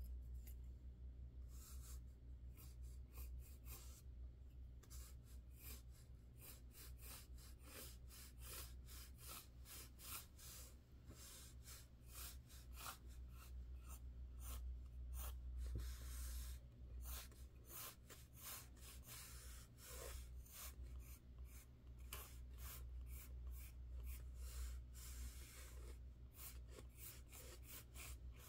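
Pencil scratching on sketchbook paper in many short, quick strokes, faint, over a steady low hum.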